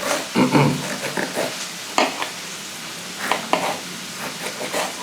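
Oil sizzling as food fries in a pan, with a few sharp knife clicks on a cutting board as a bell pepper is cut around.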